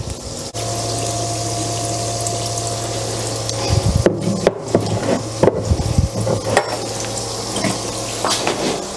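Batter-coated potato patties deep-frying in hot oil in a frying pan, a steady sizzle. In the middle come a few knocks and louder crackles as more patties are slid into the oil. A steady low hum runs underneath.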